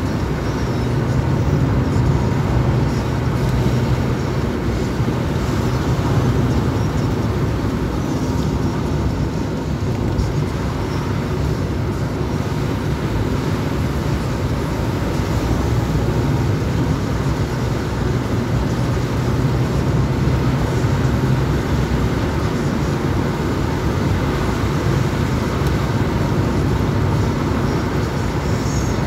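Car driving at speed, heard from inside the cabin: steady road and engine noise with a low hum.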